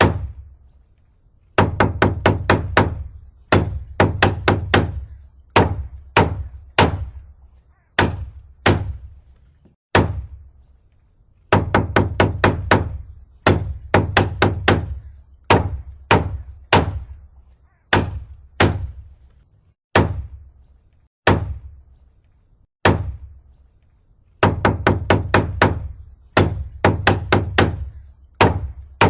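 Hammer blows, struck in quick runs of four to six at about four a second, between single blows spaced about a second apart.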